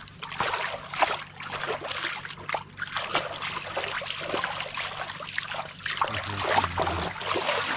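Water trickling and splashing, with many small irregular splashes.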